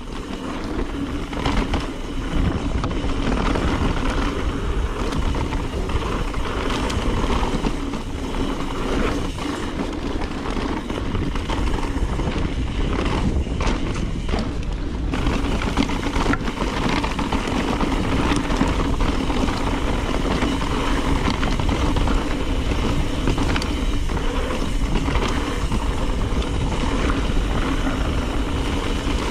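Wind rushing over an action-camera microphone as a full-suspension mountain bike rolls fast downhill on knobby tyres over sandy dirt singletrack, with steady rolling noise and scattered small rattles and clicks from the bike.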